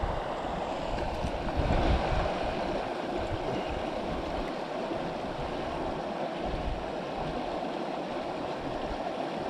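Stream water rushing steadily over rocks, with a brief low rumble about two seconds in.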